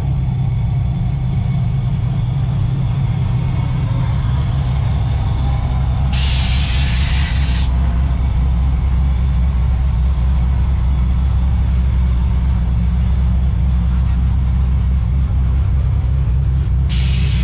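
A motor vehicle's engine running with a steady low rumble, broken twice by a short loud hiss of air: once about six seconds in and again near the end.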